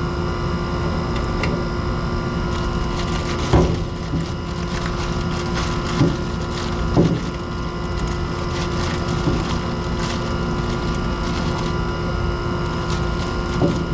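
Ice being packed against an overheated air-conditioner compressor's shell to cool it, with a few short knocks and crunches, four in all, over a steady mechanical hum.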